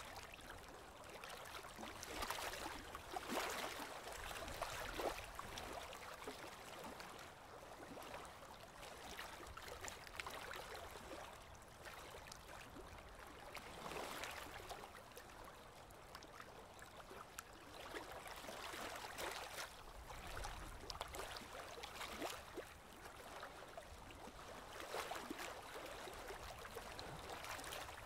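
Aquarium water bubbling and trickling as air from an air line rises through a goldfish tank, faint and continuous, with fine pops and irregular swells.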